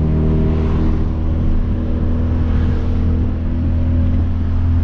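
Tuned, full-bolt-on Hyundai Veloster Turbo's turbocharged 1.6-litre four-cylinder engine and exhaust droning at a steady cruise, heard from inside the cabin with the windows down, with road and wind noise underneath.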